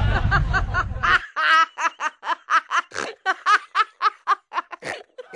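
A woman laughing in a long, rapid string of ha-ha bursts, about four a second. Music under the first second cuts off suddenly, leaving the laughter alone.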